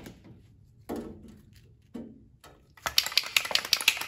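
Aerosol spray-paint can sputtering in a rapid run of short sharp spits starting about three seconds in, spraying in a finicky, uneven way rather than a steady hiss. Two brief low sounds come before it, about one and two seconds in.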